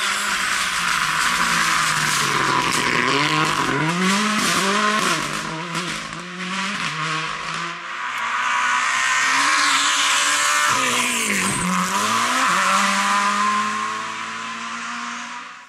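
Rally cars driven flat out on a tarmac special stage, one after another: engines revving high and falling away through quick gear changes, with sharp exhaust pops and crackles in the first half. About eleven seconds in, an engine's pitch drops sharply on a downshift and climbs again.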